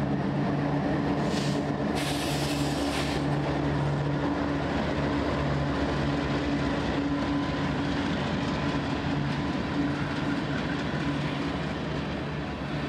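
Freight train passing close by: its GE diesel locomotives' engines drone steadily as they go past, with a brief hiss about two seconds in. Near the end the engine sound drops away, leaving the rumble and clatter of freight-car wheels on the rails.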